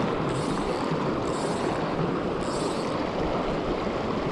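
Shallow mountain creek rushing over a rocky riffle, a steady wash of running water. Three short, faint high hisses come through it about a second apart.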